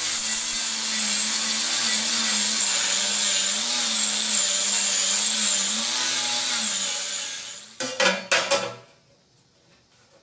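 Angle grinder with a flap disc grinding a steel weld flush, its motor whine wavering slightly in pitch as it runs under load with a strong high hiss. About seven and a half seconds in, it winds down and stops, followed by a few short clatters, and then the sound goes quiet.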